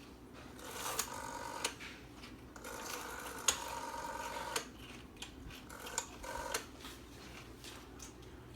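Rotary telephone dial being wound and let go, whirring steadily as it spins back, three times, with sharp clicks between the turns.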